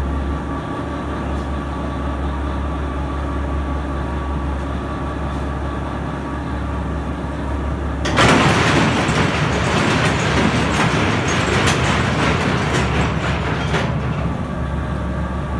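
Underground mine loading machine running with a steady hum. About eight seconds in it works much harder, a dense rushing clatter for about six seconds, then it settles back to the hum.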